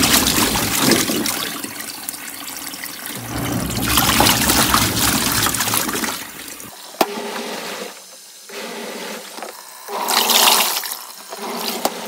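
Water pouring and splashing into the wash tub of a Giantex portable twin-tub washing machine as its agitator churns a load of clothes, over the low hum of the wash motor. The hum drops out a little past halfway, with a single sharp click, and after that there is only water splashing and sloshing, with a loud surge near the end.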